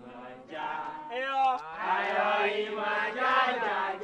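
A group of voices chanting a song together, growing louder about half a second in and again near two seconds.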